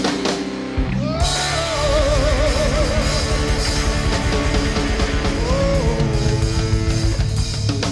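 Live rock band playing: drums, electric bass and guitar together. The sound thins briefly just under a second in, then the band comes back in under a held note with wide vibrato.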